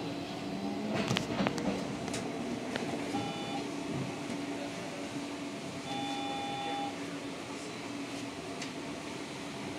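Škoda 32Tr SOR trolleybus running, heard from inside near the driver: a steady electric drive hum, a few knocks and rattles about a second in, and two short electronic beeps, the second one longer, at about three and six seconds in.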